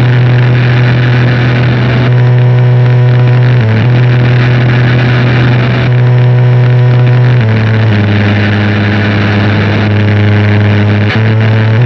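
Harsh noise wall music: a loud, dense wall of distorted static over a steady low drone that shifts to a new pitch several times.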